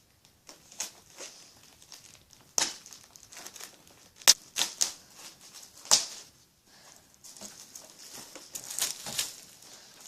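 Cardboard and plastic packaging being opened and handled: irregular rustling and crinkling with three sharp clacks, the loudest about four seconds in.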